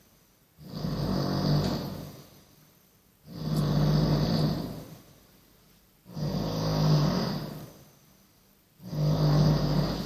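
A drunk man snoring loudly, four long snores about every three seconds with short quiet gaps between them.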